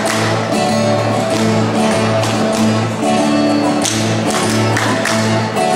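Catira dancers clapping their hands in rhythmic bursts, the sharp claps repeating in groups over a strummed guitar and steady backing music.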